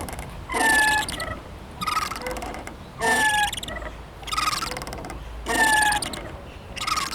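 Playground swing squeaking rhythmically as it swings back and forth: a short, slightly falling squeal at each end of the arc, about every 1.2 seconds, six in all.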